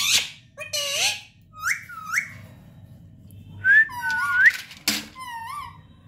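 Indian ringneck parakeet calling: short harsh squawks at the start and near the end, with clear rising whistled notes between them, some sounding two pitches at once.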